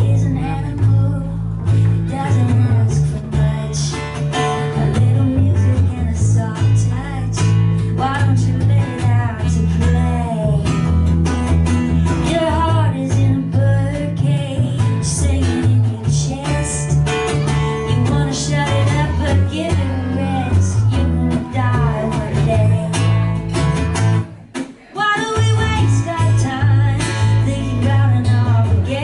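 Live song: strummed acoustic guitar with a sung melody over it, breaking off briefly about twenty-four seconds in and then starting again.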